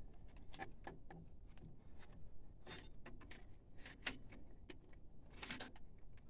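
Scattered light clicks and taps of a printer circuit board and its fittings being handled and set back into place, with a louder cluster of clicks about five and a half seconds in.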